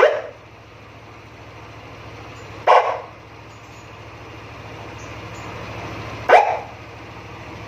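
Dog barking: three single barks a few seconds apart, over a steady low hum.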